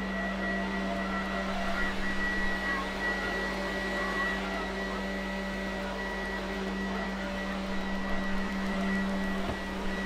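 Lefant F1 robot vacuum cleaner running on carpet: a steady motor hum with a thin, constant high whine.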